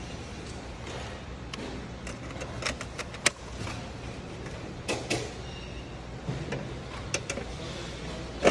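Sharp clicks and knocks from hardware being handled on a desktop computer, over a steady low hum. The knocks come singly and in small clusters, a few seconds apart.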